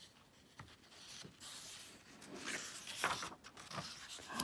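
Pages of a picture book being turned by hand: paper rustling and sliding, loudest about three seconds in.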